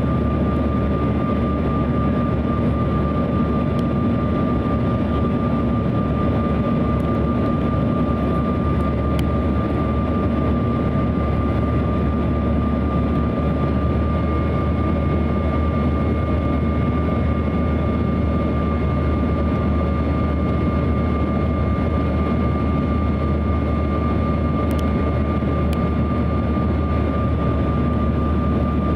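Cabin noise aboard a Bombardier CRJ-900 on approach with flaps extended: a steady rush of airflow and the hum of its rear-mounted turbofan engines, with a steady high whine. A fainter, higher whine joins about halfway through.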